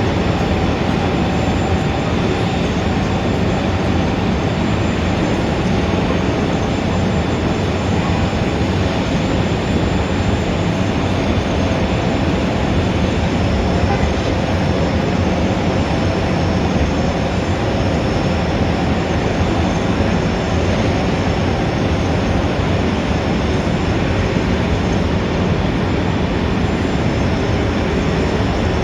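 Steady, dense city street traffic noise: a continuous hum of many engines and tyres with no single event standing out.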